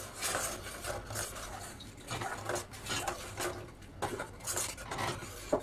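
Long slotted metal spoon stirring milk in a stainless steel pot, with repeated irregular scrapes and light knocks against the pot. The milk has been boiled down to half, and the stirring mixes in food colouring.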